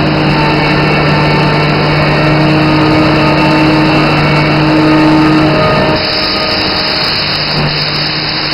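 Busellato CNC woodworking machining centre running: a loud, steady machine noise with several hum tones. About six seconds in the sound changes, the lower hum dropping away as a higher hiss comes up.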